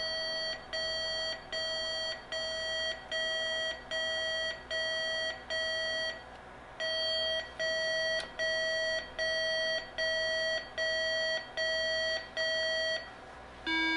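IBM PS/2 motherboard's speaker beeping out a register readback from a custom debug BIOS: a run of short beeps all at the same high pitch, about one and a half a second, with a brief pause about six seconds in. All-high beeps are the failure pattern, showing that the parallel-port register in the faulty chip is not reading back correctly.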